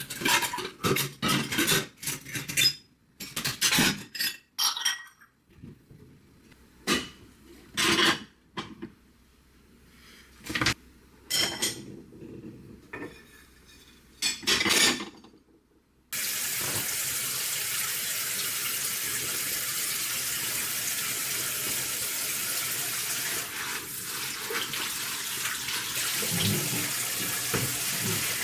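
Kitchen sounds: for about sixteen seconds, scattered clinks of dishes and splashes of water come in short bursts. Then a steady, even hiss starts suddenly and keeps going.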